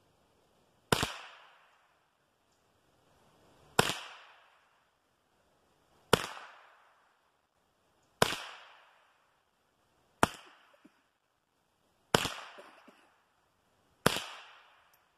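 Seven shots from a scoped Savage .22 rifle firing 38-grain high-velocity .22 LR rounds. The shots come one by one, roughly two seconds apart, and each sharp crack trails off briefly.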